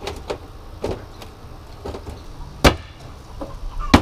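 Mini excavator engine running with a low steady rumble, under irregular knocks and clanks from the demolition work. Two sharper, louder bangs come about two and a half seconds in and at the very end.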